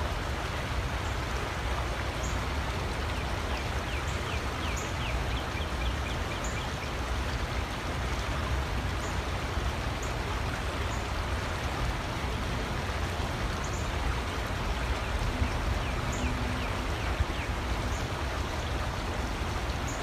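Steady rush of flowing creek water, even and unbroken throughout.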